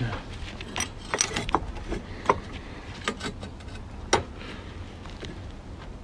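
Scattered metallic clinks and knocks of a homemade rotary chimney damper's steel stem and angle-iron frame being fitted into the brickwork by hand; the loudest knock comes about four seconds in.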